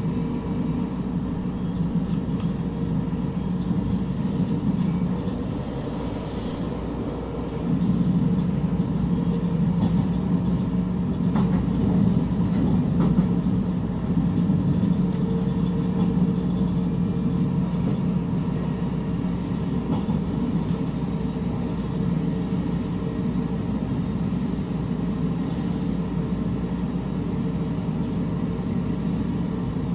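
Electric stopping train running along the track, heard from the driver's cab: a steady rumble, with a few faint clicks from the rails. The rumble grows louder about eight seconds in.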